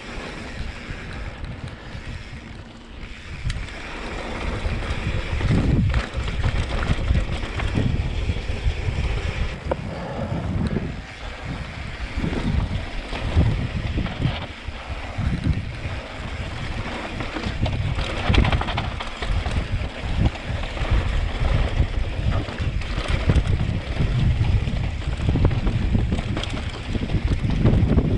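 Wind buffeting the microphone of a camera riding on a mountain bike descending a dirt trail, in uneven gusts, over the noise of the tyres rolling on the dirt. It gets louder about four seconds in.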